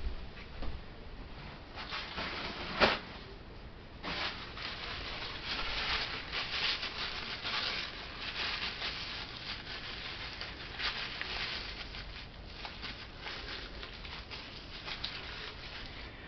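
Rustling and light handling noises from work at a table, with a single sharp click about three seconds in.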